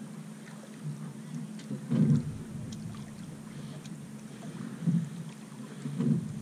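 X-332 sailing yacht under way in light wind: a steady wash of water and wind, with brief low gusty thumps about two, five and six seconds in.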